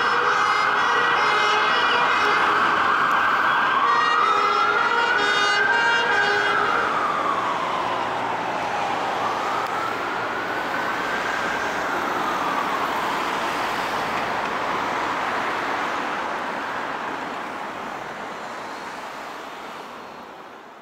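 Emergency vehicle siren: a held tone for a few seconds, then a slow wail rising and falling twice, with two blasts of a horn early on, fading away toward the end as the vehicle draws off.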